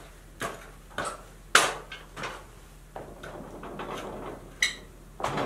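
Boots knocking and clanking on a steel trestle scaffold and its wooden plank as a man climbs onto it and steps about to test that it holds: a string of separate knocks, the loudest about a second and a half in, and a short ringing metal clink near the end.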